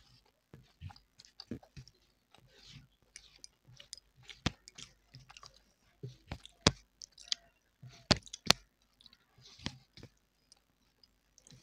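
Close-miked eating sounds: wet chewing and mouth clicks and smacks at irregular intervals, the sharpest smacks about halfway through and around two-thirds of the way in.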